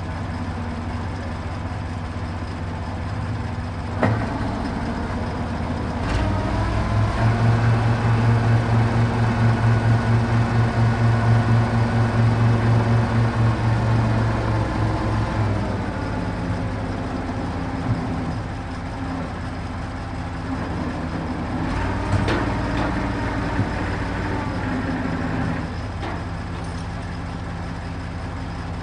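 A truck crane's diesel engine runs steadily, then revs up and pulses louder for about ten seconds while the crane works, before settling back to a steady run. A few sharp metallic knocks come through, from the chains or concrete blocks being handled.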